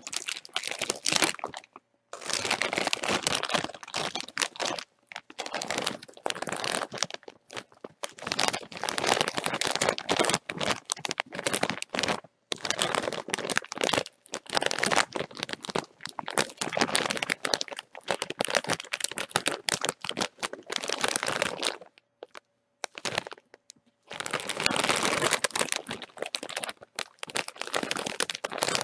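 A plastic-foil bag of chips being crinkled and crumpled by hand, in bouts of dense crackling a few seconds long with short pauses between them.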